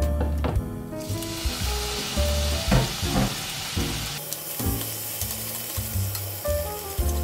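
Raw shrimp and bacon sizzling in hot oil in a frying pan. The sizzle starts suddenly about a second in as the food goes into the pan, then carries on steadily while it is turned with wooden chopsticks.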